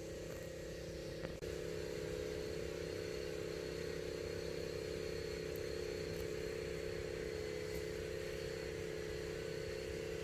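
Steady mechanical hum with a few fixed tones, dropping out briefly about a second and a half in, then running on unchanged.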